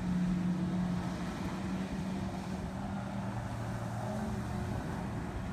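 Jet ski engine running steadily as it carves turns, its pitch dropping about three seconds in, over a haze of water and wind noise.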